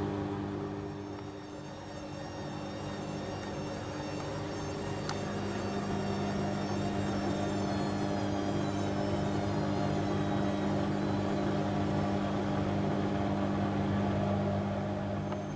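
Panasonic front-loading washing machine's drum motor turning a near-full load of laundry, with a steady hum. A high motor whine falls slowly in pitch through the middle as the drum slows, and there is a single sharp click about five seconds in.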